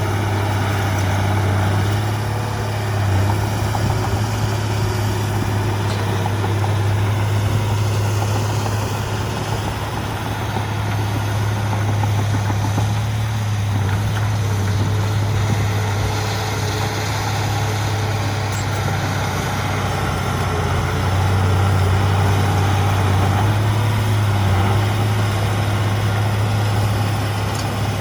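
Heavy diesel earthmoving machinery running steadily with a deep, constant engine hum. The level eases a little partway through and rises again later.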